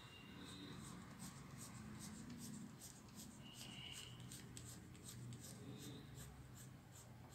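Oil pastel scratching across paper in short, quick downward shading strokes, about three or four a second, faint.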